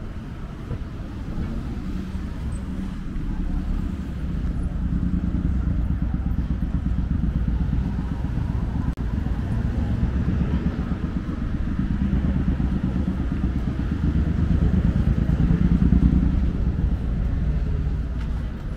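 Low rumble of a motor vehicle engine in street traffic, growing louder to a peak near the end and then easing off as it passes.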